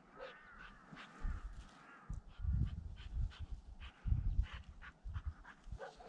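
Pointer dog whining with a wavering high pitch for about the first second and a half while searching brush for a flushed bird. Then come repeated heavy low thumps and rustling through the scrub.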